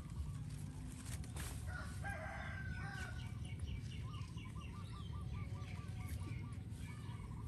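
A rooster crowing about two seconds in, followed by a quick run of short repeated bird calls, about four a second, over a steady low background rumble.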